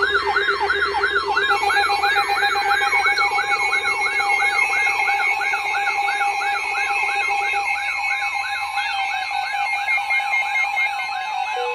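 Electronic siren on a fast up-and-down yelp, about three or four sweeps a second, over a steady lower tone that stops about two-thirds of the way through.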